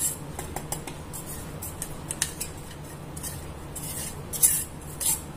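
Silicone spatula scraping ground powder out of a steel mixer-grinder jar, with short scratchy strokes and light clinks of the steel jar, the loudest scrape near the end.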